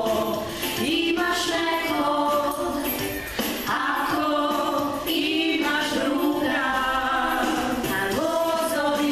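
A woman and a girl singing a song together without accompaniment, in long held notes.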